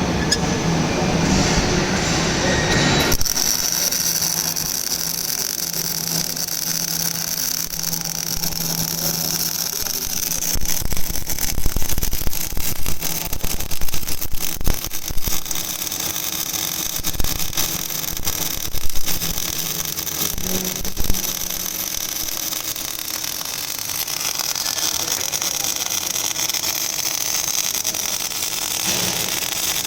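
MIG welding arc on a pipe joint, hissing steadily and crackling, over a low steady hum. About ten seconds in the crackle grows denser and more irregular for roughly ten seconds, then settles back to an even hiss.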